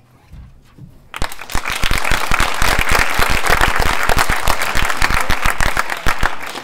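Audience applauding, breaking out about a second in, with some single claps close by standing out over the rest.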